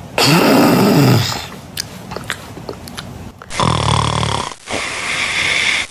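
Loud snoring in sleep: first a snore that glides up and then down in pitch, then a few faint clicks, then a long, steady snore from about three and a half seconds in.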